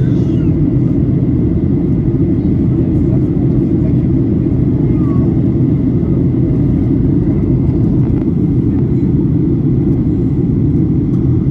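Steady low rumble of a Boeing airliner's engines and airflow, heard from inside the passenger cabin.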